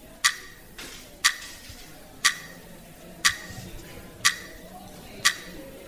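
Quiz answer timer ticking, six sharp clicks one second apart, each with a brief ringing tone: the countdown of the team's time to answer.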